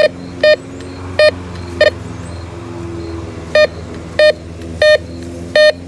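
Metal detector beeping over a buried target: eight short beeps of the same pitch, in two runs of four with a pause of about a second and a half in the middle, over a steady low hum.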